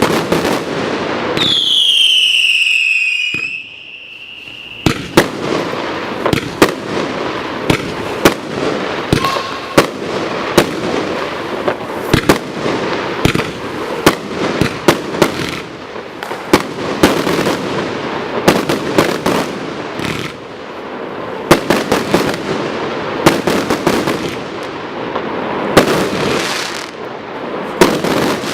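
Retribution barrage firework going off. Near the start a loud whistle falls in pitch and then holds, followed by rapid crackling and many sharp bangs from shots and bursts in quick succession.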